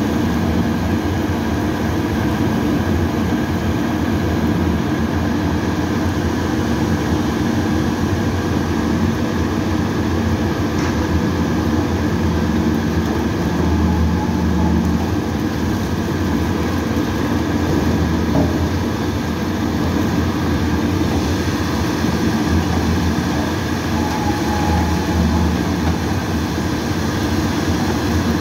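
Dual-shaft shredder running steadily, its electric motors and gearbox humming as the twin shafts shred thick paper tubes fed into the hopper. The noise is loud and even, with a steady low hum that swells slightly now and then.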